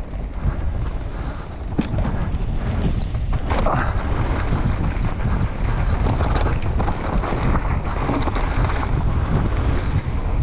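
Wind buffeting a helmet-mounted GoPro Hero9's microphone as a mountain bike descends a dirt trail at speed, with knobby tyres rolling over dirt and the bike clattering over bumps in a few sharp knocks. It grows louder over the first couple of seconds as speed builds.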